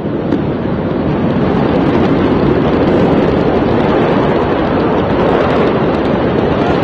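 Steady, loud rushing noise, growing a little louder about a second in.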